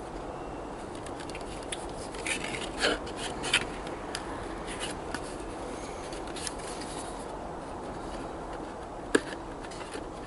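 Hands handling a cardboard model-locomotive box: scattered rubbing, scraping and small clicks of card as the box is turned and its end flap worked open, with one sharper click about nine seconds in.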